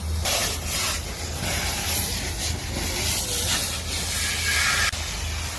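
A steady, dense rushing hiss that changes abruptly about five seconds in.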